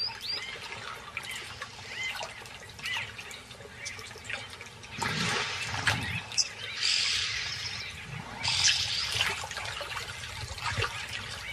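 Water sloshing and splashing around hippos in a pool, with scattered small bird chirps throughout; the splashing swells into a louder rush around the middle.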